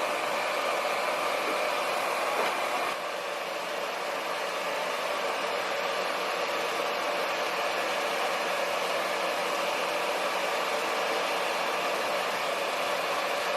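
Hair dryer blowing steadily, with a slight drop in level about three seconds in.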